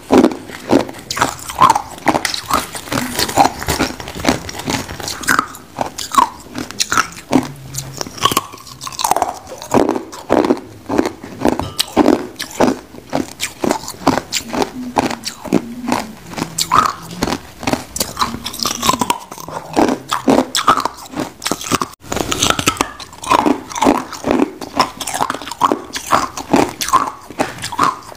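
Clear ice being bitten and chewed: a dense, irregular run of sharp crunches and cracks, several a second.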